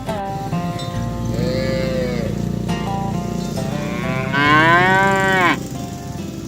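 Cows mooing: a shorter moo about a second and a half in, then a louder, longer one about four seconds in, each rising and then falling in pitch. Background music with held notes plays underneath.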